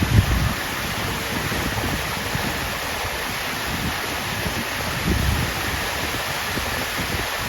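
Water fountain splashing steadily, with wind buffeting the microphone in low gusts about half a second in and again around five seconds in.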